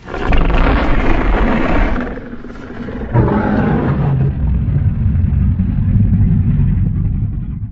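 Custom-made recreation of the Legacy of Monsters Godzilla roar: a long, loud roar that eases off about two seconds in, then swells again into a deep rumbling roar that tails away near the end.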